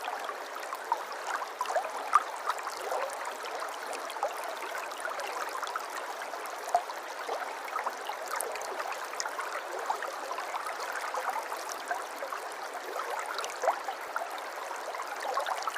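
Shallow river or stream babbling steadily over rocks, a continuous water rush dotted with small splashes and gurgles.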